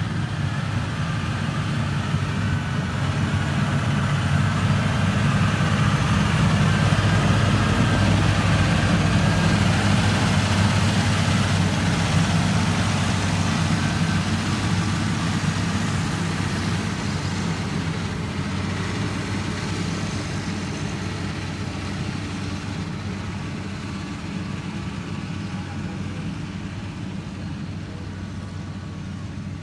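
Heavy construction machine's engine running steadily, growing louder over the first several seconds and then slowly fading.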